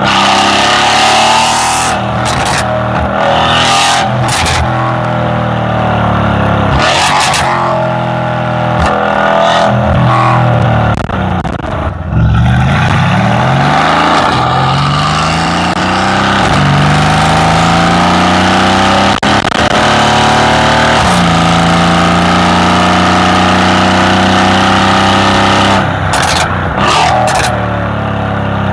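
Mercedes-AMG C63's twin-turbo V8 running through a catless, valved Fi performance exhaust while driving, heard from a camera mounted on the car. The engine's pitch climbs and drops several times, with a long rising pull a little before halfway, then settles into a steady drone for the last third. Short rushes of noise come and go throughout.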